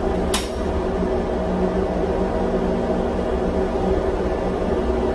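Steady hum of a ship's engine-room machinery, with several steady tones. About a third of a second in, one sharp metallic clink as a spanner is set down on the steel top of the fuel-injector testing machine.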